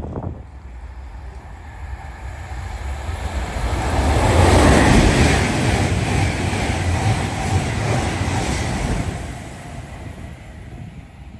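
Electric express passenger train passing through a station at speed: a rush of wheels and air with a low rumble that builds, peaks about four to five seconds in, and fades over the last couple of seconds.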